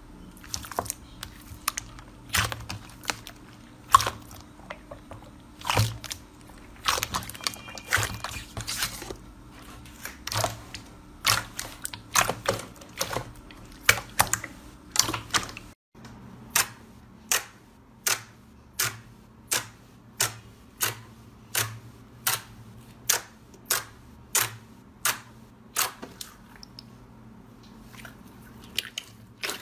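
Hands pressing and squeezing slime, making sharp wet clicks and pops as trapped air bursts. The clicks are irregular at first; after a break about halfway, they come evenly, about three every two seconds, then thin out near the end.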